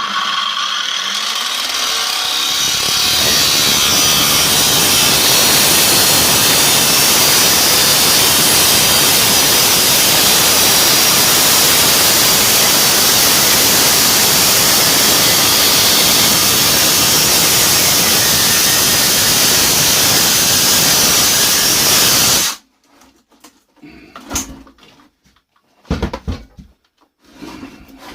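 Large angle grinder cutting into the metal of a combi boiler heat exchanger: a loud, steady grinding that builds over the first few seconds and cuts off about 22 seconds in, followed by a few light metal knocks.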